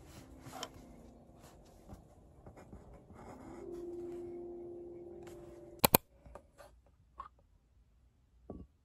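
A pen scratching on paper over a steady low hum that swells about three seconds in. About six seconds in come two sharp clicks, the loudest sounds, then a few light taps of a spoon against a yogurt cup.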